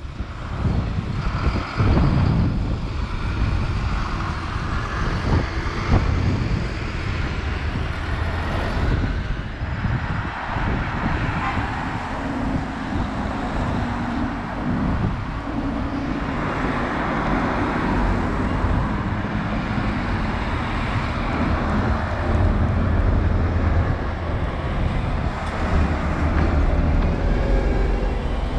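Road traffic: double-decker buses and cars driving past, a continuous mix of engine hum and tyre noise.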